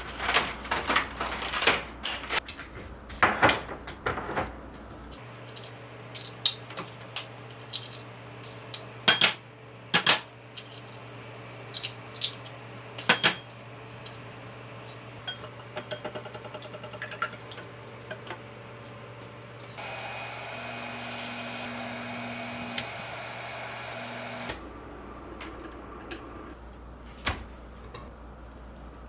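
Dishes and cutlery clinking and knocking, with scattered sharp clicks over a steady low hum. A few seconds of rushing noise come about two-thirds of the way through.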